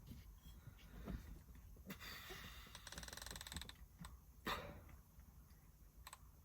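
Faint clicking of a rifle scope's elevation turret being dialed, with a quick run of fine, even clicks around the middle as the dial is spun, and a short handling knock a little later.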